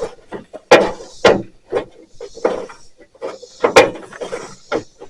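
Irregular sharp knocks and clicks with short rattles: metal parts and hand tools being handled and fitted during a truck hood hinge repair.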